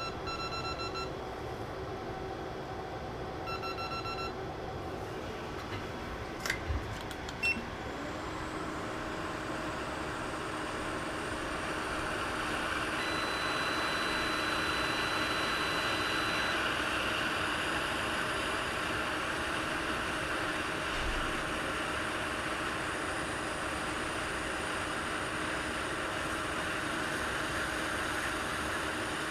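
Two short electronic beeps, two sharp clicks, then a hot air rework station blowing from about eight seconds in, its rushing air building up and holding steady while solder balls are reflowed for a chip reball.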